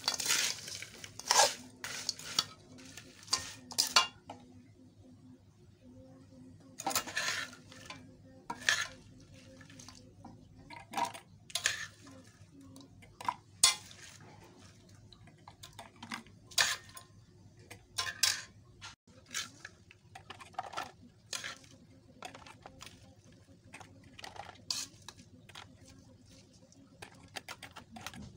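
A metal spoon scraping and clinking against a metal pan as oily dried-fish pickle is stirred and mixed: irregular short scrapes and knocks, a few every couple of seconds.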